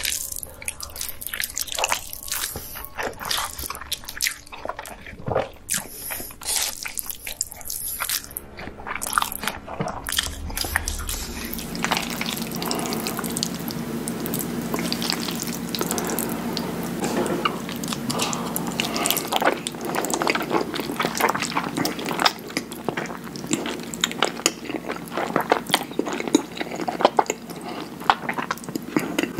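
Close-miked mukbang eating sounds: a mouth slurping and chewing noodles, heard as a dense run of small clicks. About 12 s in, the eating switches to creamy fettuccine alfredo slurped off a fork and chewed, over a faint steady hum.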